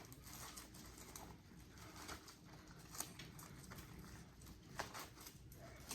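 Faint crackles and scrapes of hard plastic sheathing being split and peeled off thick 4/0 copper wire, with scattered small clicks, a sharper one about three seconds in and another near five seconds.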